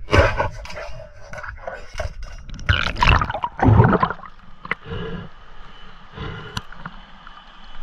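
River water splashing and gurgling in irregular surges, with a few sharp clicks.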